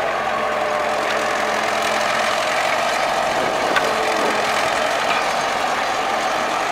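DT-75 crawler tractor, fitted with a combine's diesel engine, running steadily as it crawls along on its tracks.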